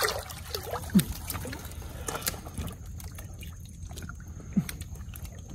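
Shallow water splashing and trickling as someone gropes underwater by hand for freshwater prawns, with a sharper splash about a second in.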